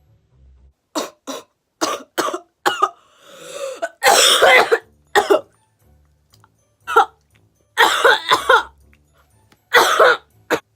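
A young woman coughing in a fit after inhaling a lungful of cannabis smoke from a bottle bong: a dozen or so short, loud coughs in clusters, with a drawn, rasping breath just before the loudest cough.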